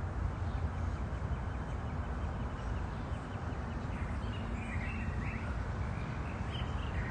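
Steady low outdoor background rumble, with short bird chirps in the second half.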